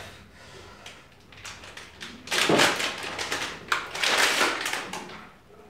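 Clear plastic bag rustling and crinkling as it is pulled off a battery cell, in two loud spells of handling about two and four seconds in.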